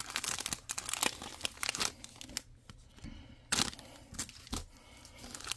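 A Bowman Chrome trading card pack's wrapper being torn open and crinkled by hand: a string of short crackles and tearing sounds, the loudest about three and a half seconds in.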